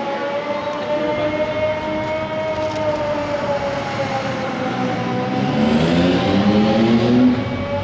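Air raid siren sounding a long, steady wail whose pitch drifts slowly. About five seconds in, a passing vehicle's engine note rises over it for a couple of seconds.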